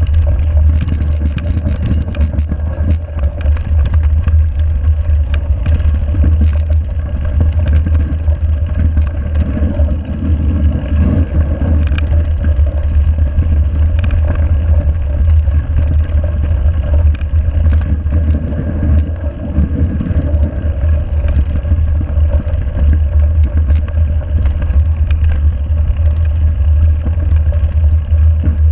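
Wind buffeting a mountain bike's GoPro microphone as a steady low rumble, over the rolling noise of the tyres on a snow-covered gravel track. Scattered clicks and rattles come from the bike.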